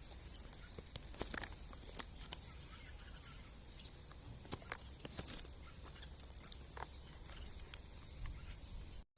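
Faint outdoor ambience: a steady high-pitched drone with scattered small clicks and ticks. The sound cuts out for an instant near the end.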